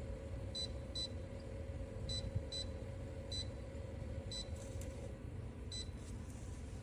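Seven short, high electronic beeps at uneven intervals: the Coolfiqu humidifier's electronic control panel confirming button presses. They sound over a steady low hum.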